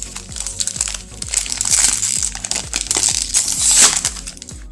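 Plastic wrapper of a baseball card pack crinkling loudly as it is pulled open along its seal, over background music.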